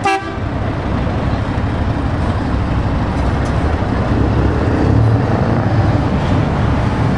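Scania tractor unit's diesel engine running as the truck pulls slowly away, a steady low rumble that grows louder about five seconds in.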